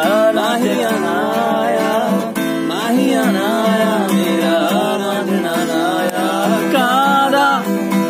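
Music: a song, a voice singing long gliding phrases over a steady accompaniment.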